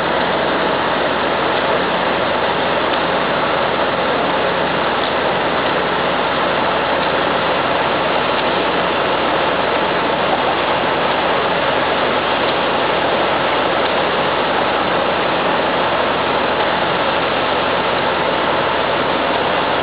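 Heavy diesel machinery running steadily as a crawler bulldozer tows a Tatra 815 dump truck stuck in mud by a cable; the loud engine noise holds level throughout, with no sudden events.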